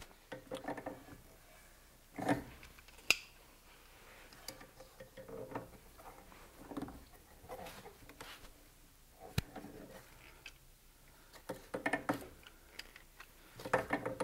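Tongue-and-groove pliers clicking and scraping on the brass fittings of a hot-water recirculation pump as they are tightened, in scattered taps and clicks, the sharpest about three seconds in.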